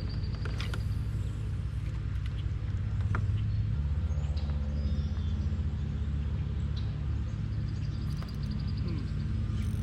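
A steady low engine drone that shifts in pitch a few times, with faint bird chirps and a few light clicks over it.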